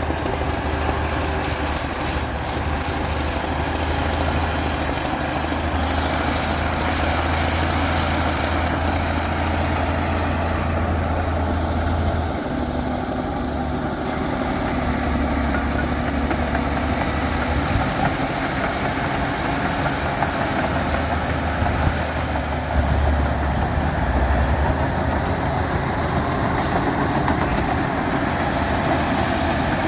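Komatsu D60P bulldozer's diesel engine running steadily, its low note shifting about twelve seconds in and again a few seconds later.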